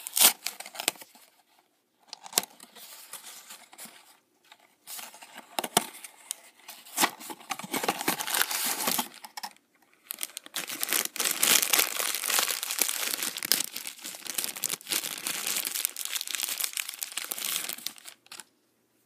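A cardboard Funko blind box being torn open in short bursts, then a black foil bag crinkling and tearing in a dense run of several seconds, stopping abruptly near the end.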